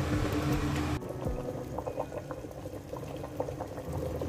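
Chorba simmering in a pot, bubbles popping at the surface in small irregular blips. A steady hum and hiss cuts off suddenly about a second in.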